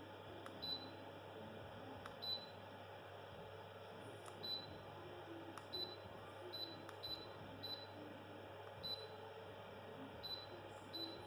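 Klarstein FP12 Aosta electric fireplace running faintly: a steady low hum with about ten short, irregularly spaced clicks, each carrying a brief high blip.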